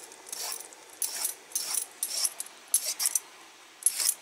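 Metal ladle scraping and clinking against the soup pot in about ten short strokes at an uneven pace, as foam is skimmed off simmering beef broth.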